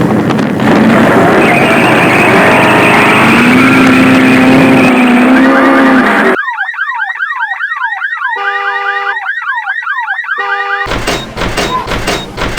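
A loud, noisy wash for about six seconds, then an electronic alarm sequence: repeated falling chirps about twice a second, switching to steady beeping tones and back to chirps. About eleven seconds in, a pounding beat starts.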